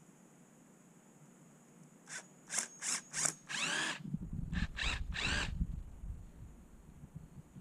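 Lag bolts being tightened into a wooden stair rail with a hand-held tool: about seven short bursts over three and a half seconds, starting about two seconds in, with low rumbling from handling the rail in the middle.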